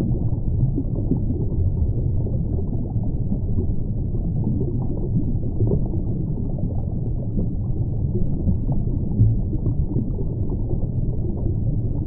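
Underwater ambience: a steady, muffled low rush of water with faint scattered crackles and no high sounds.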